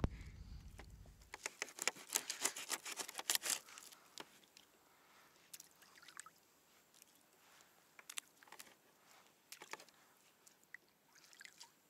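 Small clicks and taps of fishing tackle and bait being handled on a kayak while rigging up: a quick flurry for about two seconds, then scattered single taps.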